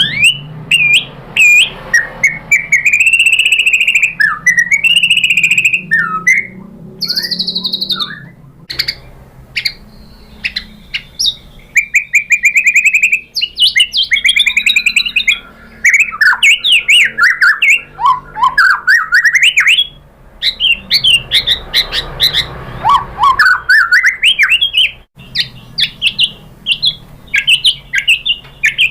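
White-rumped shama (murai batu) singing a long, varied song of loud whistled phrases, rapid runs of short repeated notes, and rising and falling sweeps, with sharp clicking notes in between.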